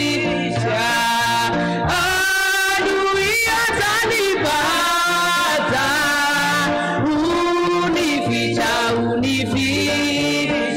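Congregational praise-and-worship singing: voices sing a song over instrumental accompaniment with a repeating bass line.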